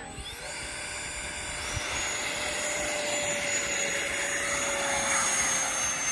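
Electric ducted fan of a Freewing T-45 Goshawk RC model jet spooling up, its whine rising over the first two seconds and then holding high over a rush of air, louder near the end, as it powers the takeoff roll.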